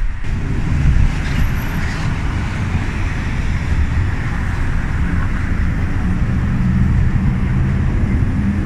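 Steady road vehicle noise: an engine running with a continuous low rumble, with a few steady engine tones near the end.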